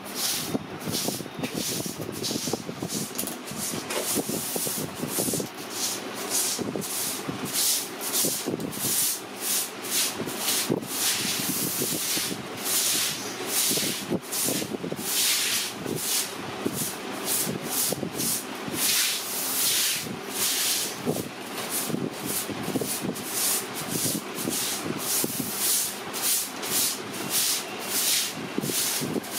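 Cake-decorating spray gun hissing in repeated short bursts, about one or two a second, as food colour is sprayed onto a piped cream cake.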